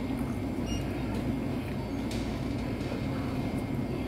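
Steady low background rumble and hum, with a few faint small clicks from eating with chopsticks.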